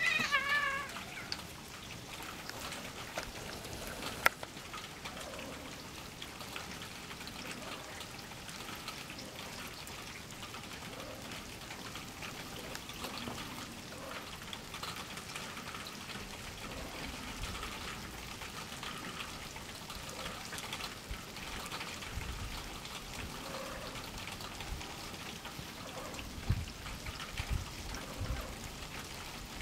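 A cat meows once at the very start, a short call that rises and then falls in pitch. After it there is only a steady faint outdoor noise, with a sharp click about four seconds in and a few low thumps near the end.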